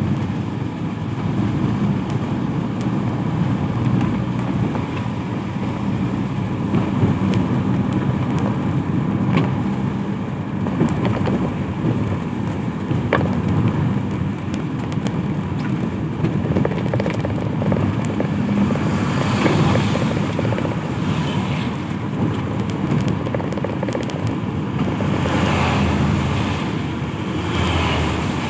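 Road traffic on a wet road in the rain: a steady low engine rumble with the hiss of tyres on wet asphalt, swelling twice in the second half as vehicles pass.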